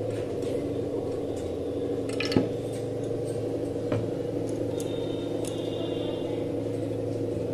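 A steady electrical hum, with two light metallic clinks from an aluminium pressure cooker, one about two and a half seconds in and one about four seconds in.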